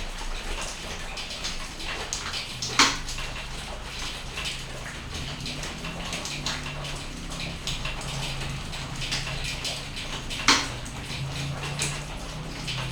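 Steady rain falling, a dense patter of drops and drips, with two sharp, loud drop-like knocks about three seconds in and near ten seconds in. A low steady hum runs underneath.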